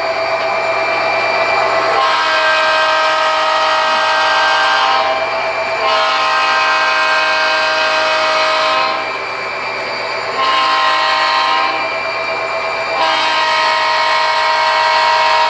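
Model diesel locomotive horn from an HO scale train's sound system, sounding a series of long chord blasts with short breaks and a quieter spell just past the middle.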